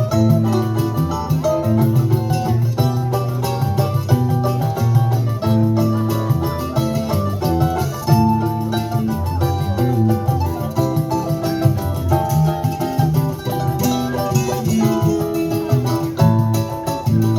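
Choro music played on plucked string instruments: a quick melody over a low running bass line.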